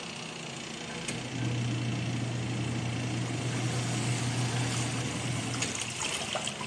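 Fujidenzo twin tub washing machine's electric motor running with a steady hum that swells up about a second in and drops away near the end, followed by a few light clicks and rattles.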